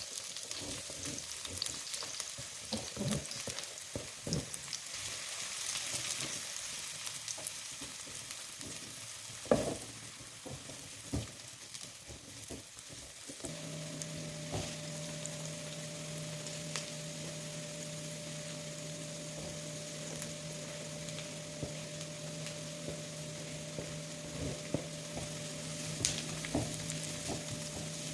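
Food sizzling in a frying pan while being stirred, with knocks of the utensil against the pan, one of them loud. About halfway through, a steady low hum begins under the sizzle.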